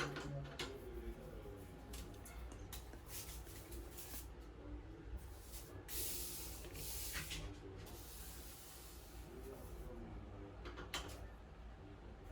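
Scattered small knocks and clicks of things being handled, with a brief hiss or rustle about six seconds in, over a steady low hum.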